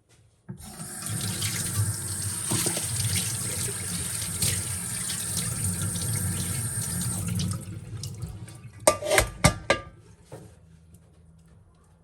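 Water running steadily, as from a tap, for about seven seconds, then dying away, followed by a few sharp knocks close together.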